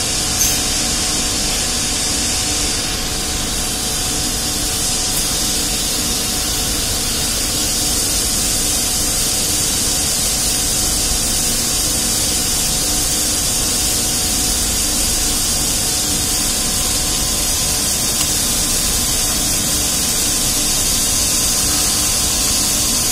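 Steady, unchanging hiss with a faint hum underneath: background noise.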